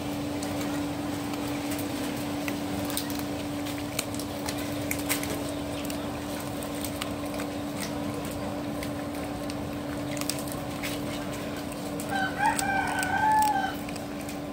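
A rooster crowing once near the end, about a second and a half long, over a steady low hum.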